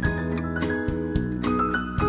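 Background music with a steady beat and clear melodic notes.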